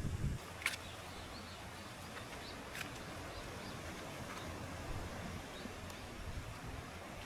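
Faint birds chirping in short repeated calls over a steady outdoor background, with two sharp clicks in the first few seconds.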